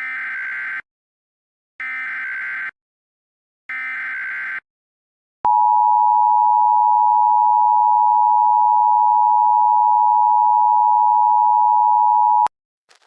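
Emergency Alert System signal: three short bursts of screechy digital SAME header data about a second apart, then the two-tone EAS attention signal held steady for about seven seconds before cutting off suddenly.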